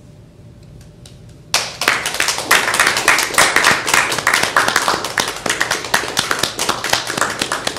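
Small audience applauding. It breaks out suddenly about a second and a half in after a short hush, and the separate hand claps are easy to pick out.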